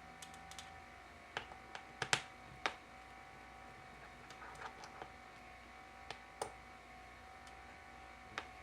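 Irregular small, sharp clicks and ticks of a screwdriver working the small hinge screws of a laptop's display, over a faint steady hum.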